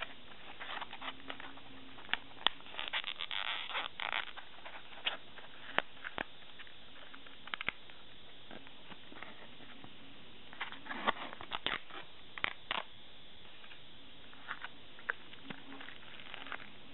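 Plastic film crinkling and a polystyrene foam natto tub creaking as it is unwrapped and its lid opened, in scattered crackles and clicks with two busier stretches of rustling.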